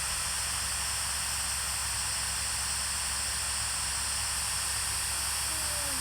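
Steady hiss with a low hum underneath, unchanging throughout, with no distinct event.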